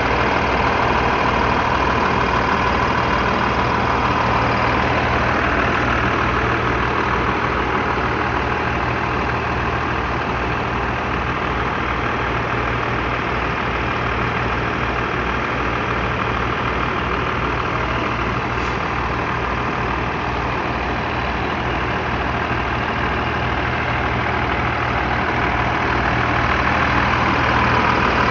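Fire engine's motor running steadily to drive its pump, with a low, evenly pulsing drone under a constant rush of noise from the pump and the deck gun's water stream.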